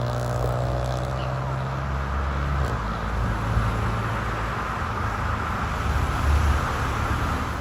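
Heavy vehicle's engine running with a steady low drone, under road and traffic noise; the engine note changes a little under three seconds in. No siren is sounding.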